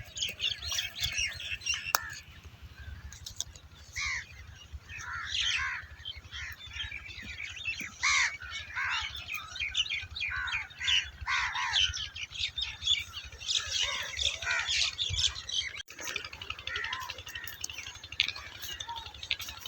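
Several small birds chirping and calling over one another in many short, quick notes that rise and fall, with a steady low rumble underneath.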